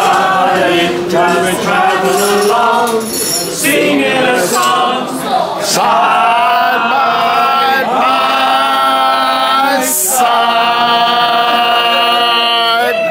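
A group of people singing a song together unaccompanied, several voices at once, with long held notes.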